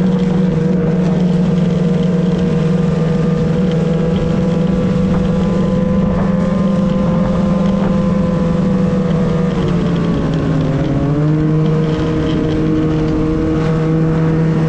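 A motor vehicle engine running steadily at an even speed. Its pitch dips briefly about ten seconds in and then recovers.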